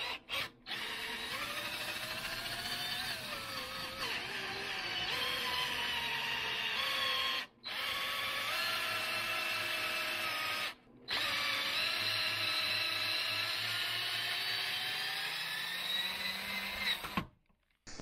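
Cordless drill on its low speed setting turning a reamer through a VW Beetle door hinge's pin bore, opening it up for oversize hinge pins. A steady motor whine whose pitch wavers with the cutting load, broken by a few brief gaps.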